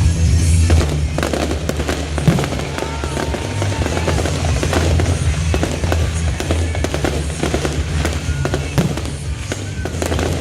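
Fireworks bursting and crackling in rapid, overlapping succession over loud music with a heavy, steady bass.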